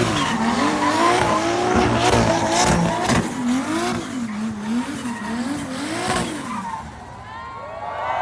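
Sports car engines revving, their pitch swinging up and down again and again. The sound dips briefly near the end, then a car's engine rises in pitch as it accelerates.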